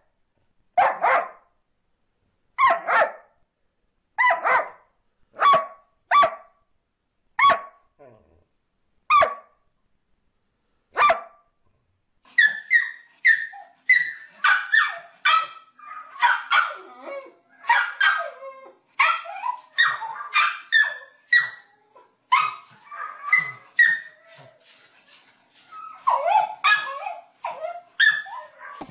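A dog barking single barks, one every second or two, for about the first eleven seconds. Then a small white dog barks and yips in fast, higher-pitched runs.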